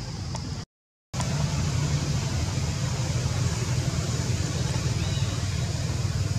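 Steady low rumble with a hiss over it, broken by about half a second of dead silence near the start.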